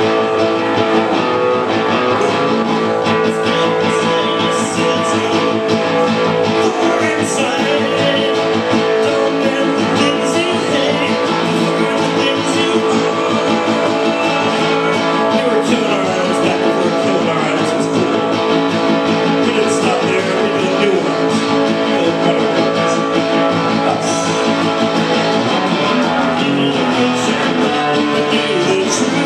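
Acoustic guitar strummed steadily, playing a song's chords without pause.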